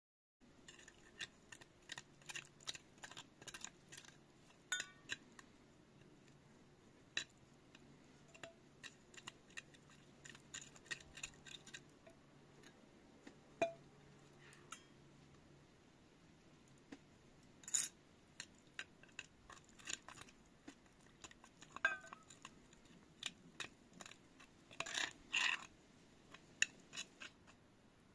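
Scattered light clinks and taps of a metal cup, plastic scoop and bowl as ingredients are measured and poured into flour for bread dough, with a quick cluster of clinks near the end. A faint low hum runs under the first half.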